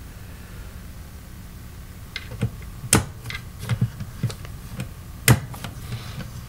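Clicks and knocks of a 1970s DeArmond 1802 Weeper wah pedal's metal housing being handled and pressed as a rubber bumper is fitted by its switch. They begin about two seconds in, with two sharp clicks standing out about three and five seconds in.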